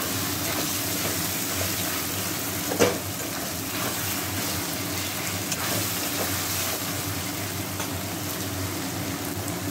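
Sliced onions sizzling in hot oil in a metal kadai, stirred and scraped around the pan with a metal spatula; one louder clack about three seconds in.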